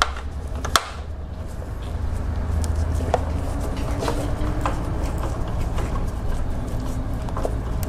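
Screwdriver backing out a long Torx T25 screw, with scattered small metallic clicks and taps and one sharp click about a second in, over a steady low hum.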